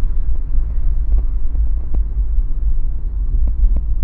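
A car on the move: a steady low rumble of road and engine noise, with a few faint clicks.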